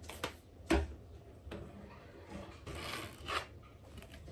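Handling noise from an old military bolt-action rifle being moved about by hand: two knocks within the first second, the second louder, then a rubbing, scraping sound around three seconds in.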